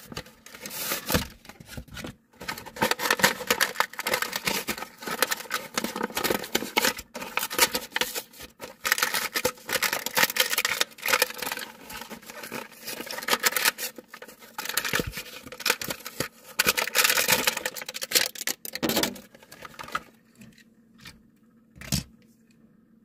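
Plastic and cardboard toy-car packaging being opened and handled to free a Majorette die-cast car: a long, uneven run of rustling and crackling handling noises. It stops about three seconds before the end, and one sharp click follows shortly before the end.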